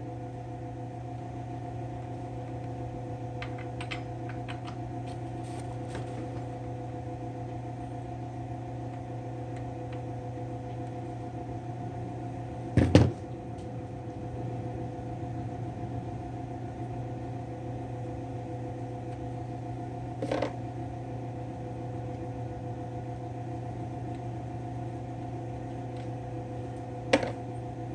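Steady mechanical hum in the background, broken three times by a short sharp clank of hand tools on the chainsaw while its bar and chain are being removed; the saw itself is not running.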